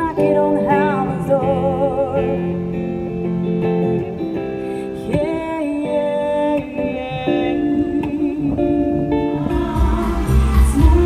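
Live duo of female voice and hollow-body guitar: the singer holds wordless notes, some with a wavering vibrato, over guitar chords. About nine and a half seconds in, the sound changes to a louder mix with heavy bass.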